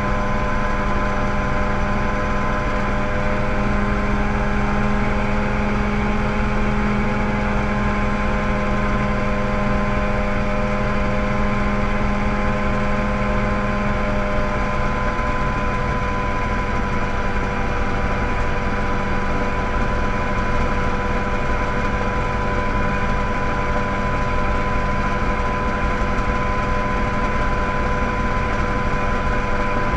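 Mosquito ultralight helicopter in cruising flight, heard from the cockpit: its engine and rotor give a steady drone at a constant pitch, with a low hum in it easing off about halfway through.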